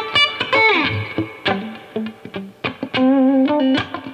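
Electric guitar fitted with a hand-wound homemade pickup, played through a small tube amp. Quick picked notes, a note sliding down in pitch about a second in, and a held note with vibrato near the end.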